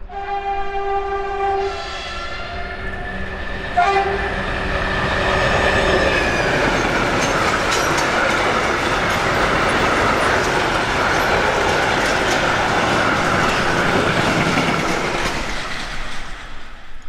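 A DB 'Ludmilla' heavy diesel locomotive sounds its horn in one long blast, then a short one about four seconds in. It then passes hauling a freight train of covered wagons, with a steady loud rumble and clatter of wheels on the rails.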